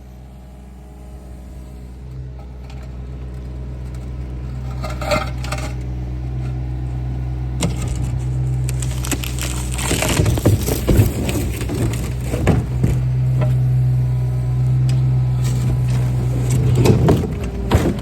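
A heavy machine's engine running steadily and growing louder, with cracking and crunching as the pool stairs are broken out, heaviest about ten to twelve seconds in and again near the end.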